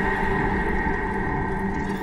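Background music: a steady droning chord of held tones.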